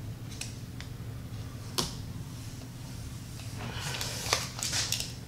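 Scissors and a roll of double-sided tape being handled: a few sharp clicks, the loudest about two seconds in, then a scratchy rustle of tape being pulled and cut near the end.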